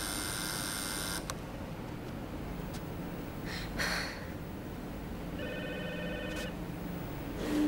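Electric apartment doorbell ringing in a steady high trill while its button is held, stopping with a click about a second in. A short rustle follows a few seconds later, then a shorter, lower ringing tone about six seconds in.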